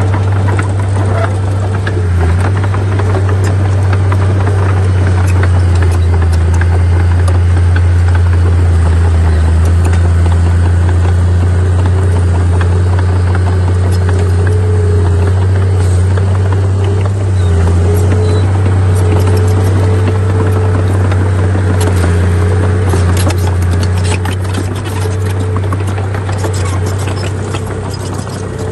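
Heavy construction machine's diesel engine running steadily under load, with clanks and rattles that become more frequent in the last third.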